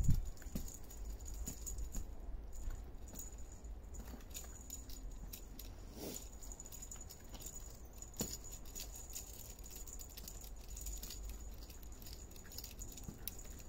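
Kittens batting and pawing small plastic toy balls among tinsel: a scatter of faint light clicks and rattles, with two sharper taps about six and eight seconds in.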